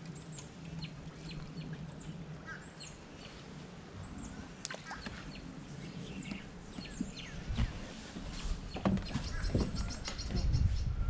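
Small birds chirping: many short, high chirps that fall in pitch, repeated throughout. A few dull knocks and clicks sound in the second half.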